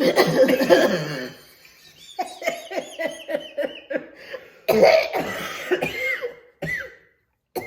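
A person coughing in two loud fits, with a run of short laughs between them and a couple of brief coughs near the end. The coughing follows a sniff of freshly ground black pepper.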